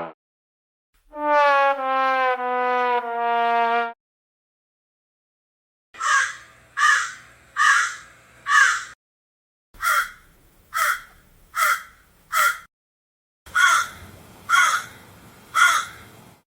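A brass-like sad-trombone jingle of four notes stepping down in pitch, followed by a crow cawing in three separate takes of three to four harsh caws each.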